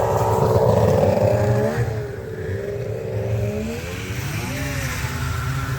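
Snowmobile engines running at high revs as the sleds race past; the engine pitch falls away about two seconds in, then another engine climbs in pitch about four seconds in.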